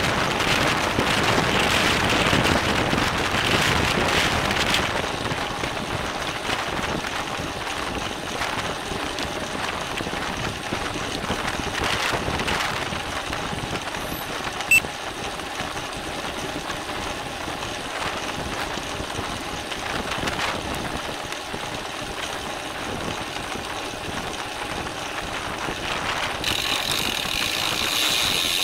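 Wind rushing over a bike-mounted camera's microphone, with tyre and drivetrain noise from a road bike racing in a criterium, and a single sharp click about halfway through. Near the end the rear freehub starts ticking as the rider stops pedalling and coasts.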